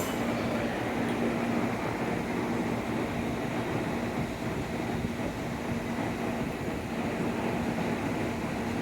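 N700 series Shinkansen train moving off from the platform: a steady rumble with a faint steady hum, growing slightly louder near the end.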